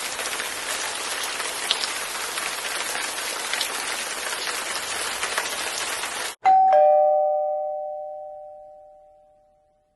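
A steady hiss like falling rain that cuts off abruptly after about six seconds, followed by a two-note ding-dong doorbell chime, a higher note then a lower one, ringing out and fading over about three seconds.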